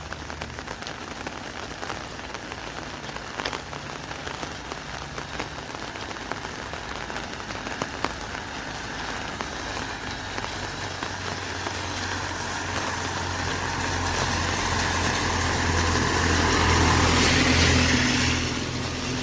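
Rain pattering on an umbrella, with scattered drops ticking. From about halfway through, a vehicle approaches with a low engine hum, grows steadily louder to a peak near the end, then quickly falls away as it passes.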